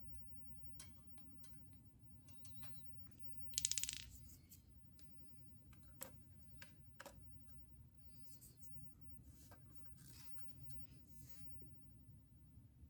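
Faint scattered clicks and handling noises as the mini air compressor's hose is fitted to the bicycle tyre valve, with one short buzzing rattle about three and a half seconds in. The compressor is not running.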